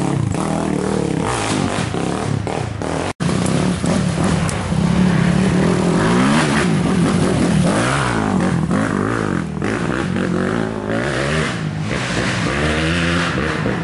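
Racing sport-quad (ATV) engines revving hard as the quads come down a dirt trail and pass one after another, the pitch climbing and falling with each acceleration and shift. The sound cuts out for an instant about three seconds in.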